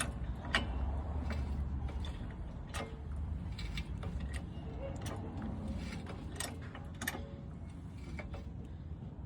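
Car jack being worked to lift a car: irregular metallic clicks and creaks from the jack's mechanism, roughly one or two a second, over a low rumble.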